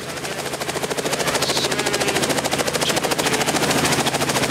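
Light helicopter hovering close by: its rotor blades beat in a fast, even chop over a steady engine drone, growing louder over the first two seconds.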